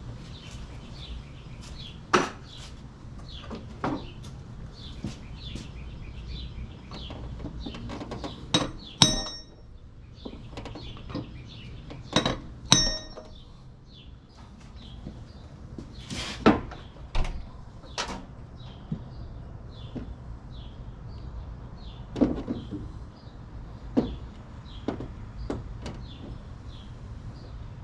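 Hammer blows striking metal: a dozen or so irregular knocks a second or more apart, a couple of them ringing. They land on a nut tack-welded onto a snapped serpentine belt tensioner bolt, trying to knock the bolt loose.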